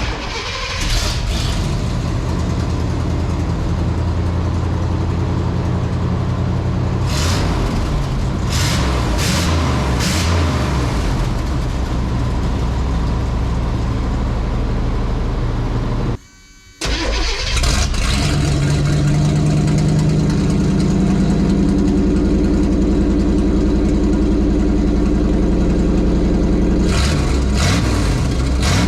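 454 big-block Chevy V8 running, blipped several times in quick succession partway through. After a short break about sixteen seconds in, it runs again with a different exhaust note and is revved again near the end, as the truck is heard through two different exhaust setups.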